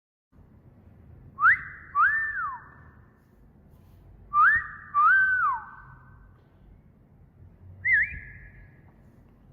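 Wolf whistle repeated twice, each a quick rising note followed by a longer note that rises, holds and falls, with a slight echo trailing each; then a short rising whistle near the end.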